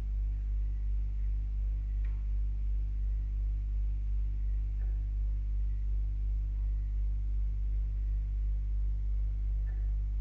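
Pump running in the background, heard as a low, pulsing drone through a pipe, with a few faint water drips.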